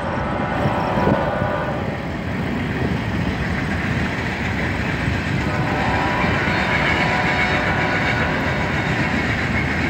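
Steady rushing wind noise on the microphone of a moving bicycle, mixed with the hum of tyres rolling on asphalt.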